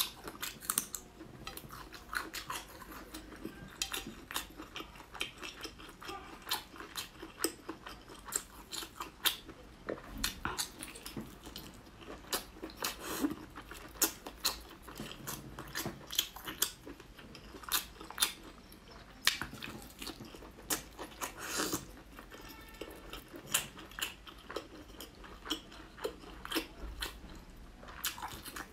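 Close-miked eating sounds: wet chewing and lip-smacking of braised pork intestines, made up of many sharp, irregular clicks.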